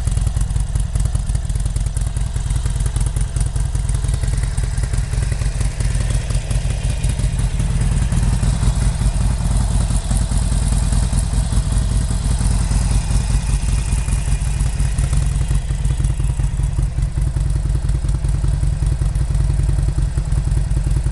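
Harley-Davidson Sportster XL883L SuperLow's 883 cc air-cooled V-twin idling steadily with an even, pulsing beat.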